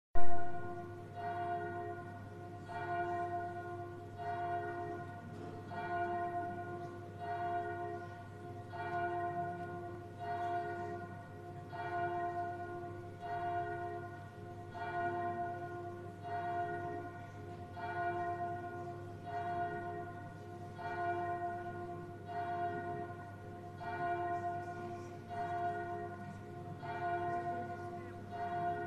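A single church bell tolled slowly and evenly, about one strike every second and a half, each stroke ringing on into the next; a funeral toll before a requiem mass. A brief loud knock comes at the very start, and a steady low hum runs underneath.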